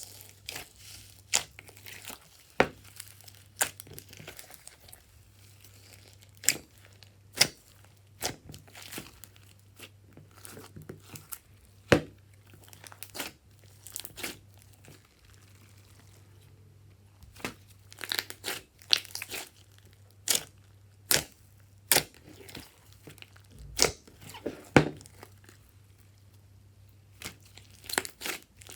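Slime being kneaded and stretched by hand: irregular sharp pops and crackles, roughly one a second and more closely bunched about two-thirds of the way through, with softer sticky crackling in between. A faint steady low hum runs underneath.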